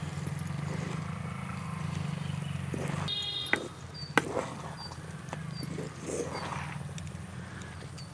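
Wooden ladle stirring thick upma in an earthen pot, with two sharp knocks of the ladle against the pot about three and a half and four seconds in. Under it, a low steady hum drops away about three seconds in, and a few short high chirps follow.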